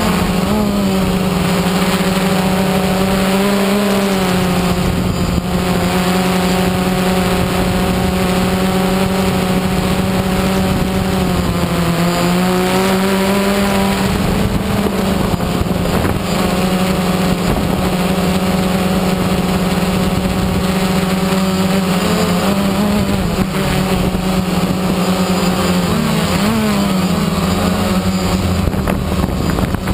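DJI Phantom 1 quadcopter's motors and propellers humming steadily, heard close up from the camera riding on the drone; the pitch dips and recovers a few times as the motors change speed.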